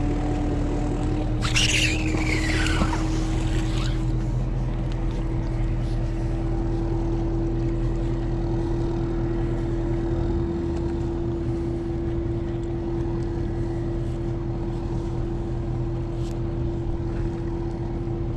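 Motorboat engine running steadily, a low drone with a steady hum, its pitch creeping up over the first few seconds and then holding. About a second and a half in, a brief louder burst of noise lasts about two seconds.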